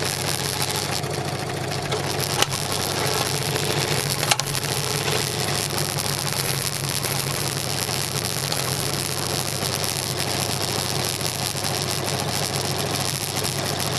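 Scroll saw running, its reciprocating blade cutting steadily through a wooden board, with two sharp clicks about two and four seconds in.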